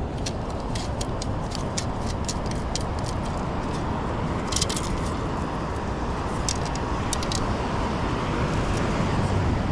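Steady wind and surf noise, with runs of quick rattling clicks from sand, shells and pebbles shaking in a metal-detecting sand scoop. The clicks come in clusters through the first few seconds, again around the middle, and once more a little later.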